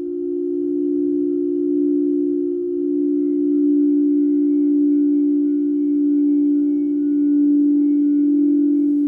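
Singing bowls sounding a sustained, nearly pure two-note drone, the two close pitches held steadily with a slow swell and ease in loudness.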